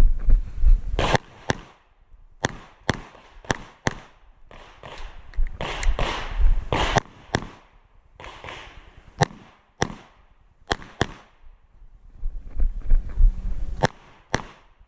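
Glock 47 9mm pistol fired in a string of shots, mostly close pairs with short pauses between groups, as the shooter engages targets while moving. Rustling movement noise fills the gaps between strings.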